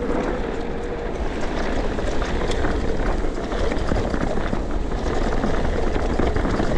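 Mountain bike descending a dirt trail: heavy wind buffeting on the camera microphone over the rattle of the bike and tyres crunching over dirt and small stones, getting louder in the first second or two as speed builds.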